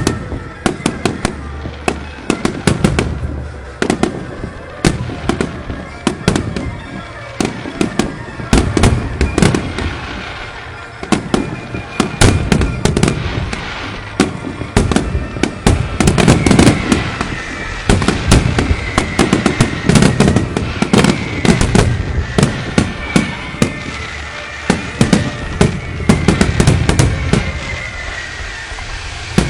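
Aerial fireworks show: shells bursting in a fast, continuous barrage of sharp bangs, growing denser about halfway through.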